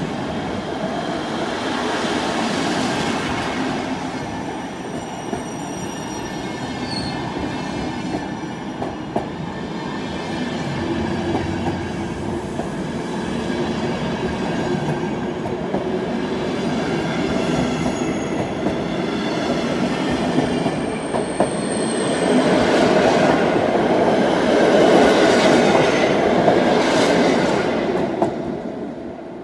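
Passenger train coaches rolling past on the rails: a continuous rumble of wheels with occasional clacks at rail joints and thin, high wheel squeal. It grows louder late on, then dies away as the last coach goes by.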